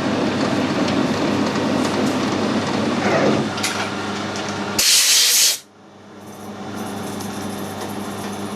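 Metal lathe running under power while screw-cutting a 1.5 mm thread. About five seconds in there is a short loud hiss, then the machine noise drops away suddenly and a lower steady hum slowly rises.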